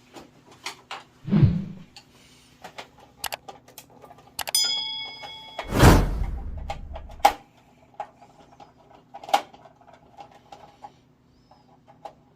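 Tools and metal parts being handled: scattered clicks and knocks, a short ringing metallic clink about four and a half seconds in, and a louder scrape lasting over a second around six seconds in.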